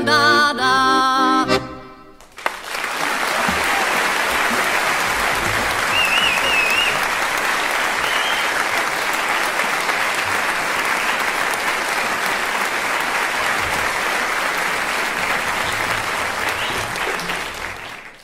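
Music with a wavering melody ends about two seconds in, followed by long, steady audience applause. A short wavering whistle rises above the clapping about six seconds in, and the applause fades out at the very end.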